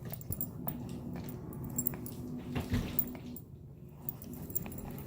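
A dog play-biting and mouthing, making wet, squishy chewing sounds with scattered small clicks.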